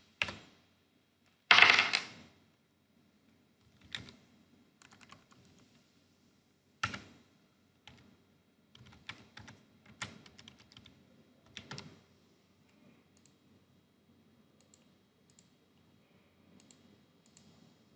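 Typing on a computer keyboard in irregular spurts of keystrokes, with one louder, longer clatter about two seconds in. The keystrokes thin out to a few faint taps in the second half.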